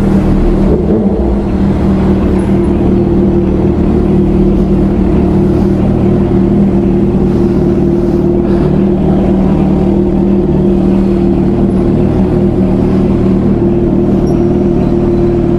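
Motorcycle engine and exhaust running at steady revs: a constant low hum whose pitch does not change.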